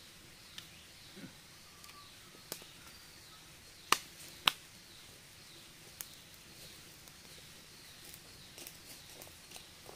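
Wood fire of dry sticks crackling, with a few scattered sharp pops, the two loudest about half a second apart near the middle.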